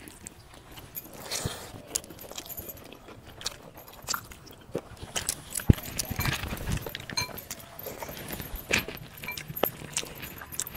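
Eating by hand: chewing mouthfuls of rice and dalma, with fingers mixing rice on the plates and scattered short clicks and taps.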